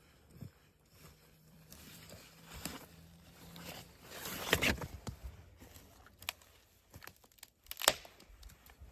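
Irregular rustling and crinkling of handled material with scattered small clicks. A louder rustle comes about four and a half seconds in and a sharp snap near the end.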